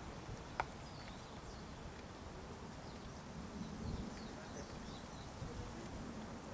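Quiet outdoor ambience: faint, scattered high bird chirps over a steady low background rumble, with a single sharp click about half a second in.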